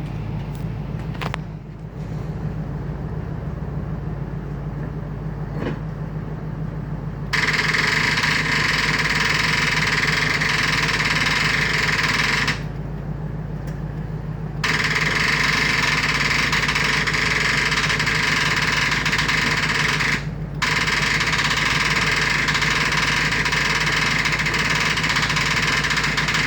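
Starter motor cranking a freshly rebuilt engine that does not catch, in three long bursts of about five to six seconds each. The first two are separated by a pause of about two seconds; the second and third are separated by only a brief break. A steady low hum runs underneath throughout. The cranking is long and hard enough that the starter begins to smoke.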